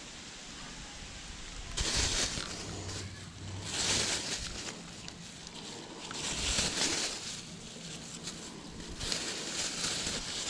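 Thin plastic bag crinkling as it is handled and opened, in about four separate bursts a couple of seconds apart.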